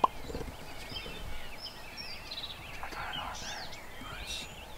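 Songbirds singing, many short whistled notes. A sharp click right at the start is the loudest sound. About three seconds in comes a short, distant rattling call: a wild turkey gobble.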